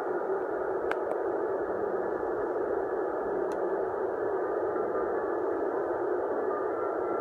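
Steady hiss from the small speaker of a baby's dolphin soothing toy, with faint notes of a tune under it.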